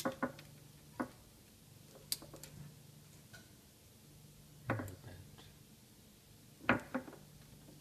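Sharp clicks and knocks of an electric window regulator's cable and fittings being handled on a wooden workbench: about five scattered strikes, the two loudest in the second half, over a faint steady hum.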